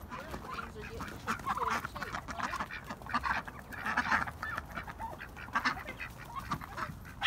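A small flock of domestic ducks quacking over and over, in short raspy calls that come loudest about a second and a half and four seconds in.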